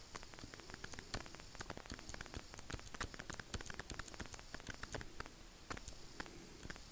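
Faint, irregular small clicks and taps of a stylus writing on a tablet surface, several ticks a second.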